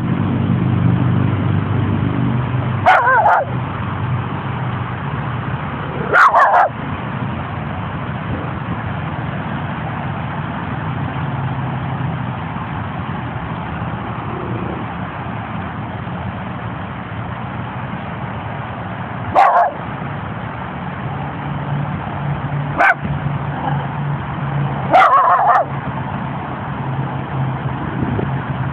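Small Jack Russell terrier–Chihuahua mix dog giving alert barks at a stranger: five short, sharp barks spaced several seconds apart, some in quick pairs. A steady low hum runs underneath.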